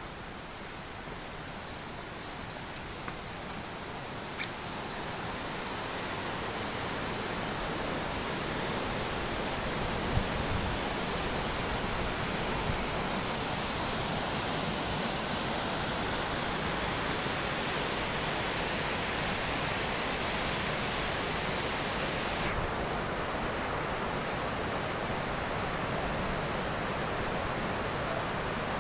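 Steady rush of a mountain stream and waterfall, growing louder over the first several seconds and then holding even.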